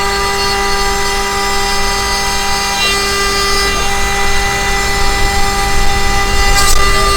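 DIY CNC router milling plywood with a single-flute end mill: a steady spindle whine with several pitches over cutting noise. The motor tones shift pitch a few times as the machine changes feed direction.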